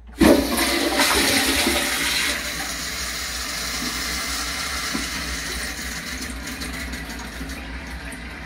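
Pressure-assisted toilet with a Sloan Flushmate 504 flushing: a sudden loud whoosh of water driven by compressed air, loudest for the first two seconds. It then settles into a steady rush of water that slowly fades.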